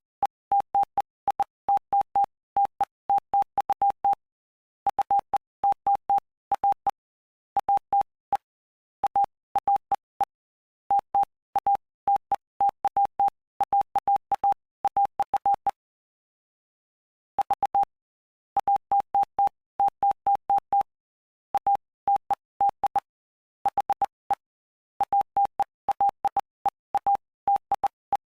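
Morse code sent as a single steady beep tone, keyed on and off in short dots and longer dashes, spelling out the text of the Gospel of Mark chapter 5 for code practice. The keying breaks off for about a second and a half partway through, then resumes.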